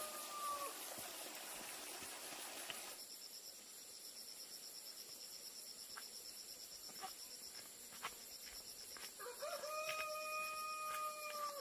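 A rooster crowing twice: a crow trails off just under a second in, and another long crow, rising at its start and then held, begins near the end.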